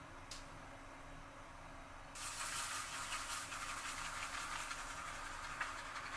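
A single short click, then from about two seconds in a continuous scratchy swishing of a badger shaving brush working shaving cream into a lather on stubbled skin.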